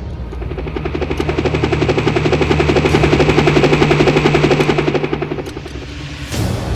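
Helicopter flying past: a rapid rotor chop over a steady low engine hum, growing louder to a peak about halfway through and then fading.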